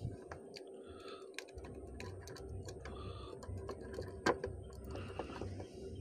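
Small, irregular clicks and ticks of a screwdriver and wire being worked at the brass terminal screws of a plastic modular two-way switch, with one louder click a little after four seconds in. A faint low hum runs beneath from about a second and a half in.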